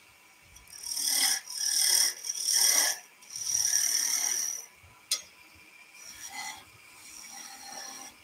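Skew chisel cutting a small wooden spindle turning on a lathe, rolling a half bead: four hissing cuts of about half a second to a second, the last the longest. A sharp click follows about five seconds in, then lighter, quieter cuts.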